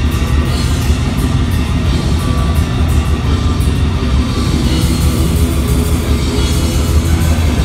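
A heavy metal band playing live at full volume: distorted electric guitar and drum kit, dense and unbroken.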